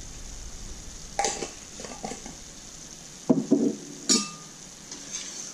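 Chicken and vegetables sizzling gently in a stainless steel sauté pan over low heat, with a few sharp clinks and knocks of a spoon about a second in and a quick run of them three to four seconds in as it is tapped and set down in a bowl.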